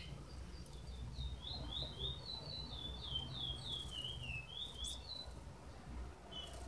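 Double-collared seedeater (coleiro) chicks, twelve days old, giving a quick run of short, high chirps, each sliding down in pitch, starting about a second in and stopping after about four seconds.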